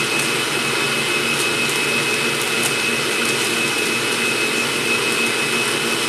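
Stand mixer running steadily as it whips an egg white protein powder and water mixture toward stiff peaks: a constant motor whir with a steady high whine. Parchment paper crinkles faintly a few times as it is pressed into a metal loaf pan.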